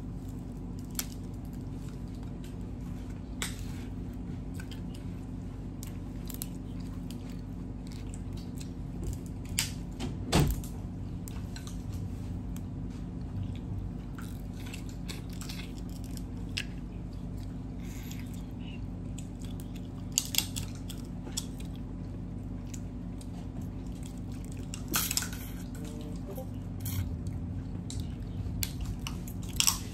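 Close-up eating sounds: cooked crab shells being cracked and picked apart by hand, with small clicks, wet chewing and a sharp snap about ten seconds in. A steady low hum runs underneath.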